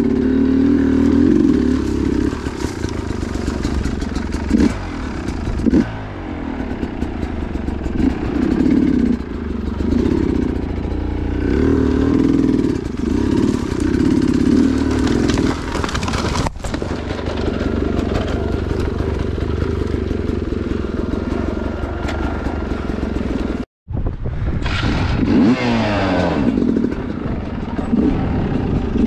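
Two-stroke dirt bike engine running under riding load, the revs rising and falling over and over. The sound drops out for an instant about six seconds before the end.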